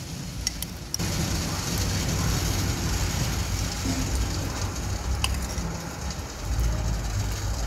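Steamer pot boiling over a wood fire: a steady hiss with a low rumble, and a couple of faint clicks about five seconds in.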